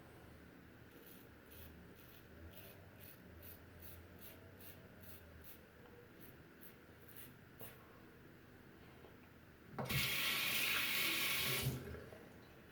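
Short, quick scratchy strokes of a Gillette Heritage double-edge safety razor with a Personna Red blade cutting stubble through lather, about three a second. Near the end a tap runs for about two seconds, the loudest sound, as the razor is rinsed.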